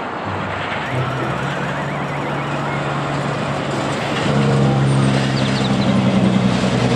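Road traffic noise with a car-carrier truck's engine running. Its low drone gets louder about four seconds in.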